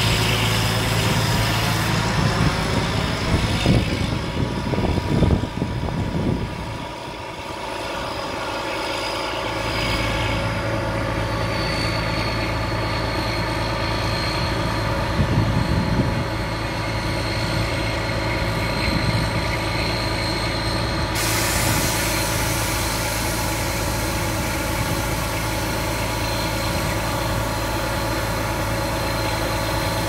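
Diesel engine of a Putzmeister BSF52.16Z concrete boom pump truck running steadily. There are a few knocks in the first several seconds and again around fifteen seconds in, a brief dip in level about seven seconds in, and a thin high whine from about eleven seconds in.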